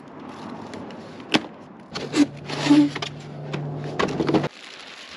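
A delivered cardboard shipping box being handled and opened: rustling with scattered clicks and knocks. A steady low hum comes in about two seconds in and cuts off suddenly about four and a half seconds in.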